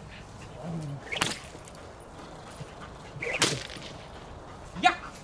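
Flirt pole's lure and line whipped through the air in two sharp swishes about two seconds apart, with a shorter one near the end.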